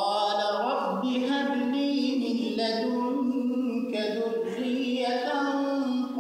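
A man chanting Quranic verses in the melodic recitation style, his voice holding long notes and stepping slowly between pitches.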